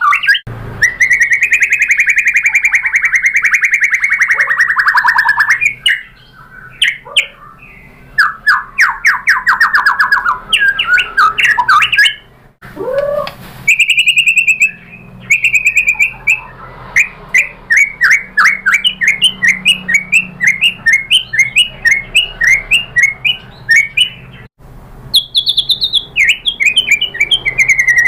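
White-rumped shama singing a loud, varied song. It opens with a long fast trill, then moves through rattling phrases and a run of quick down-slurred chirps, about two a second, with short pauses between phrases.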